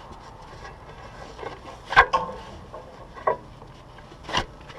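Ratchet tie-down strap being handled as its loose tail is tied off: rubbing and rustling with three sharp knocks, the loudest about two seconds in, with a brief metallic ring.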